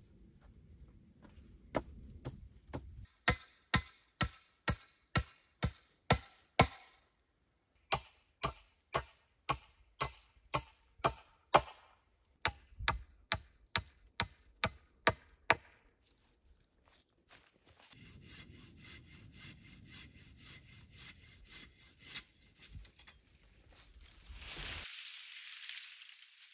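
Rapid, evenly spaced blows of a tool into wood, about two to three a second, in two long runs with a short pause between, followed by a run of lighter strikes. Softer scraping and rustling follows, with a brief hiss near the end.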